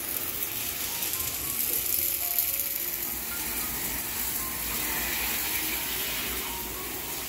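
Steady hiss of a pressure-washer jet spraying the underside of a car, with background music playing over it.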